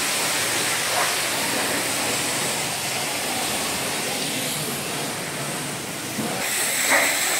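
Steady hiss of high-pressure water spray at a car wash, with the noise shifting about six seconds in and a short louder sound near the end.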